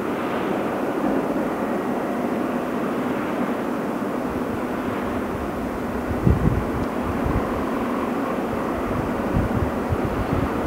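Heavy diesel machinery running steadily, with a few low thumps about six seconds in.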